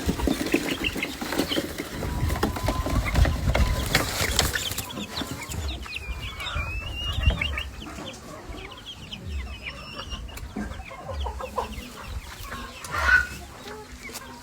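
Bantam (miniature) hens clucking and calling in short, scattered notes, with low uneven thumping underneath.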